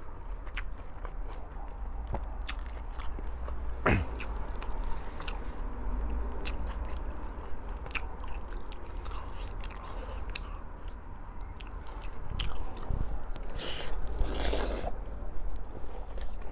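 Close-miked eating sounds: a person chewing and biting food, with many small wet clicks, one sharper click about four seconds in, and a louder noisy stretch near the end.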